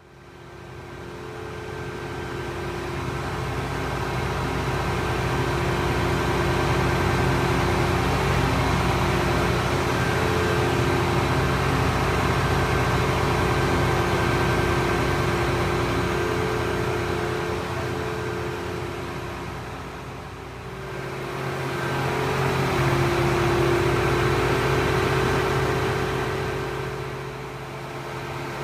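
Farm machine's engine running steadily with a droning hum. It fades in over the first few seconds, dips briefly about two-thirds of the way through, and dips again near the end.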